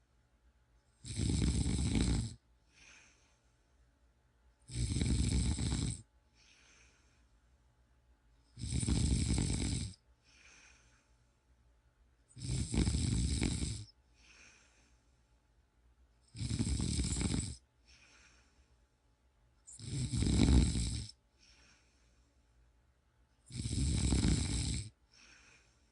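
A person snoring in a slow, regular rhythm: seven loud snores, one about every four seconds, each lasting a little over a second, with a much fainter breath sound between them.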